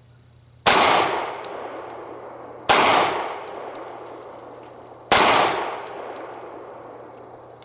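Three 9mm shots from a Glock 19X pistol, about two seconds apart, each echoing and fading slowly, with faint high metallic pings after each shot.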